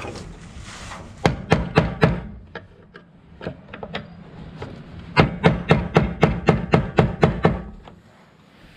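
Hammer blows on the fuel pump module's retaining ring, knocking it round to loosen it: a few strikes about a second in, some lighter taps, then a quick run of about ten blows at roughly four a second.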